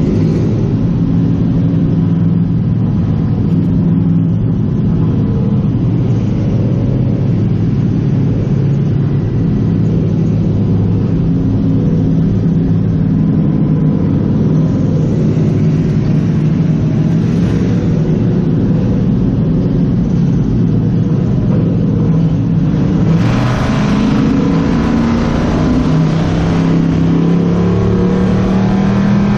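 The V8 engine of a Crown Victoria-based Bomber B stock car heard from inside its stripped cabin, running steadily at moderate speed on track. From about 23 seconds in it gets louder and pulls harder, its pitch climbing near the end as the car accelerates.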